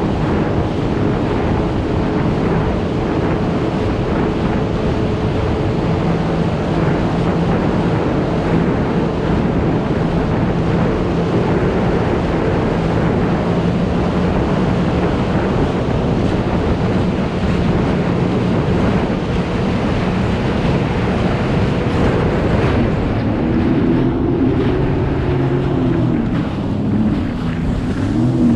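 Sea-Doo Fish Pro personal watercraft running under way over choppy water, with wind buffeting the microphone and water rushing along the hull over a steady engine hum. From about 23 seconds in, the engine pitch rises and falls several times as the throttle is worked.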